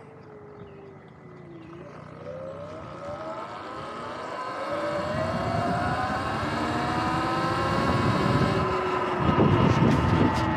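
Sur-Ron electric dirt bike's motor and drivetrain whine, falling in pitch as it slows, then rising steadily as it accelerates, with growing road and wind noise. Heavy wind buffeting on the microphone comes in about nine seconds in.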